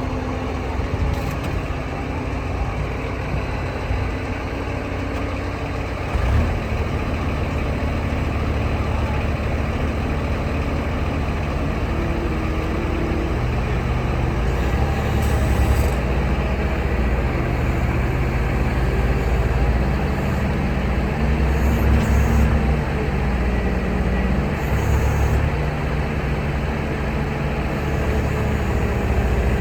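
New Holland L230 skid steer's diesel engine running, its low note shifting in pitch and level several times, with a few brief hissing sounds.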